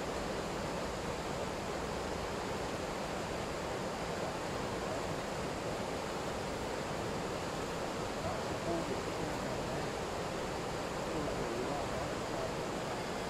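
River water rushing steadily through a stretch of white water, an even noise that never lets up.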